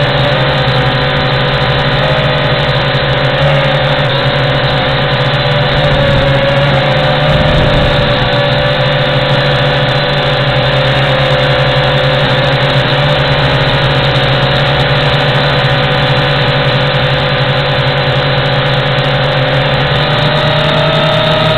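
WLToys Q222G quadcopter's motors and propellers whirring steadily in flight, heard close up from the drone's own onboard camera, with a loud whine that wavers slightly in pitch as it manoeuvres.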